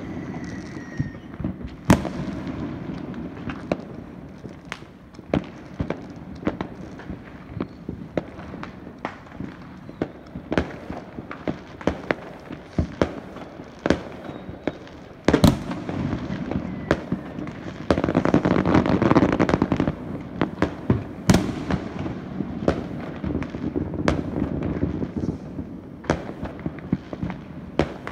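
Fireworks exploding: sharp bangs at irregular intervals, roughly one to three a second, with a louder, dense run of rapid bangs about two-thirds of the way through.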